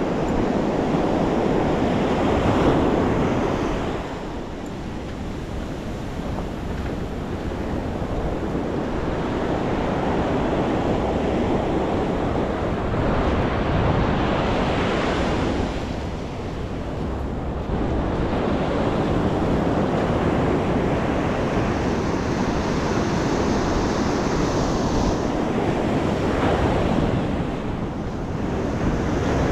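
Ocean surf breaking and washing up a sandy beach, the rush swelling and easing as each wave comes in, with wind on the microphone adding a steady rumble.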